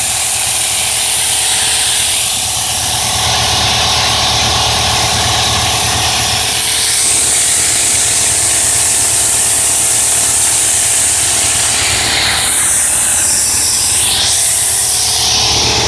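Body-shop power tool running steadily with a loud hiss over a low buzzing hum; its pitch sweeps down and back up about twelve seconds in.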